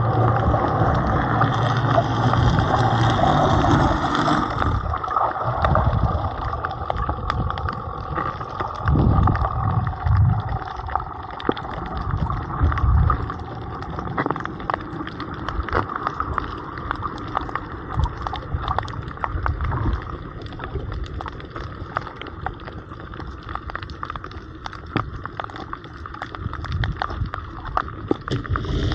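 Muffled underwater noise picked up by the camera: water surging and sloshing, with many small sharp clicks scattered throughout. For the first four seconds or so a steady low hum with overtones runs under it, then stops.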